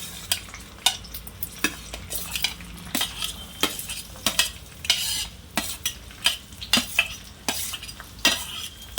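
Onions frying in hot oil in a pan, sizzling steadily, while a spatula scrapes and knocks against the pan again and again as they are stirred.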